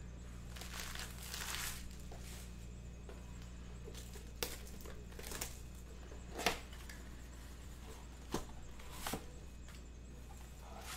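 Cellophane shrink-wrap and cardboard of a sealed trading-card box being handled and opened: a soft crinkling about a second in, then several short, sharp crackles and snaps, over a faint steady low hum.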